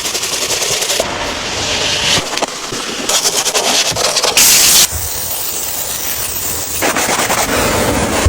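Hissing spray noise from car-detailing tools, changing abruptly every second or so from one cleaning sound to the next, with a louder, sharper spray burst about four and a half seconds in.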